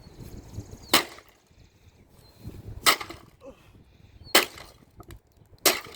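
Four hard blows striking the plastic body of a Dirt Devil Power Max Pet vacuum cleaner as it is smashed, each a sharp crack, roughly one and a half seconds apart.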